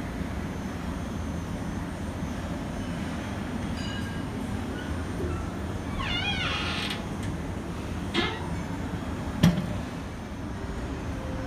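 Steady low hum of lounge background noise, with a brief wavering high-pitched squeak about six seconds in and a sharp clink, the loudest sound, about nine and a half seconds in.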